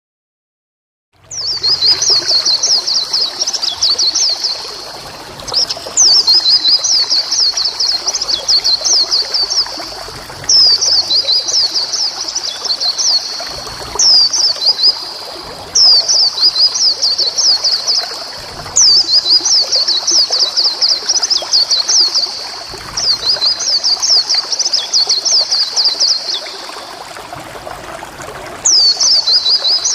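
White-eye (pleci) singing: about eight bursts of rapid, high, sweeping chattering notes, each a few seconds long. The song starts about a second in.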